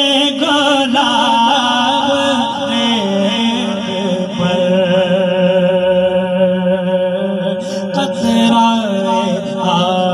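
A man's voice singing devotional Urdu verse (a naat) into a microphone through a PA, in long held notes with wavering ornaments.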